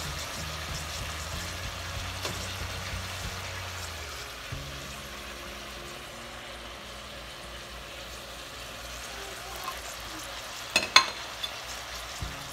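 Peeled jackfruit seeds tipped from a ceramic plate into a clay pot of coriander leaves. There is a steady hiss throughout, and a couple of sharp clicks near the end as the seeds drop in.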